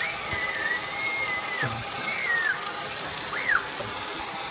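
Garden hose spray hitting a window pane, a steady rush of water. Over it come three high, wavering squeals from a toddler: a long one at the start, a shorter one about two seconds in and a brief one near the three-second mark.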